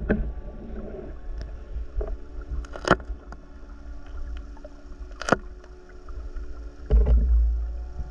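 Muffled underwater sound through a diving camera's housing while swimming through reeds: a steady low rumble with a few sharp clicks, and a louder low rush about seven seconds in.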